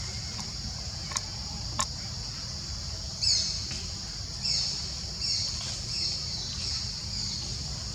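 Steady high insect drone, with two short clicks early on and then a run of about five high chirping calls, each less than a second apart, starting about three seconds in.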